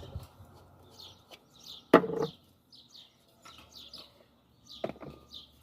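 Small birds chirping repeatedly in the background, short high downward chirps several times a second. A brief loud clatter comes about two seconds in and a lighter knock near the end.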